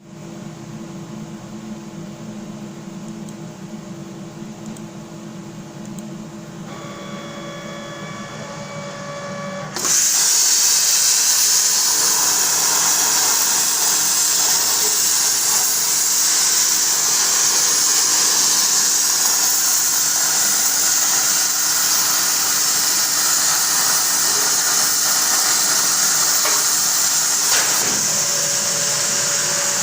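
A CNC plasma cutting table hums quietly with a few steady tones. About ten seconds in the plasma torch fires with a sudden, loud, steady hiss as the arc cuts a circle in 6 mm iron plate. The sound changes near the end.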